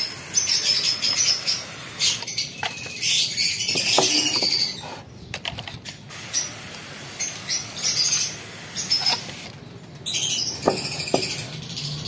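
Hand-pumped pressure spray bottle spraying disinfectant onto wooden breeding boxes: repeated bursts of hissing mist, each a second or two long, with short pauses between.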